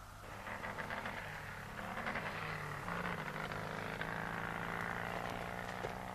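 Engine of an approaching vehicle, swelling over the first couple of seconds and then running steadily. A few short clicks come near the end.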